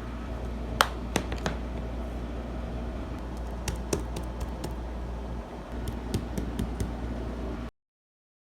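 Small plastic fidget toys handled by hands: scattered sharp clicks and taps, the loudest about a second in, over a steady low hum. The sound stops abruptly near the end.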